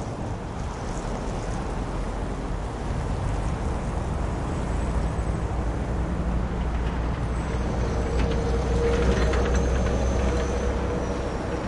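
City traffic hum at a crossroads: a steady low rumble of road vehicles that swells as a heavier vehicle draws near, loudest about three-quarters of the way in. A droning tone and a faint high whine come in with the passing vehicle in the second half.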